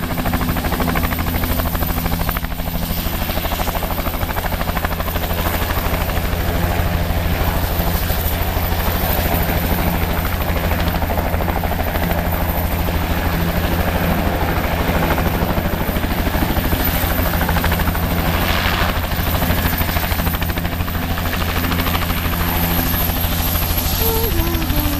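Medical evacuation helicopter's rotor and engine running steadily, with a fast, even rotor beat.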